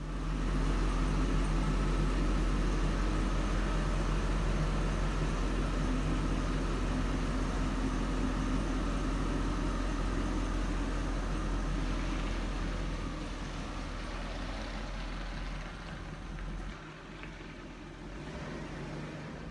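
2003 Hummer H2's 6.0-litre V8 running steadily, its exhaust manifold leak sealed with bolt clamps, growing quieter in the last few seconds.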